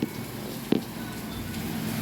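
Steady rain falling, an even hiss, with one sharp tap about three-quarters of a second in.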